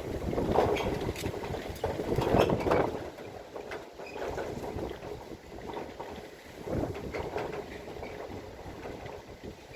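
Strong gusty wind buffeting a phone's microphone, swelling and easing, with the loudest gusts in the first three seconds and another about seven seconds in. A few light clicks or rattles sound through it.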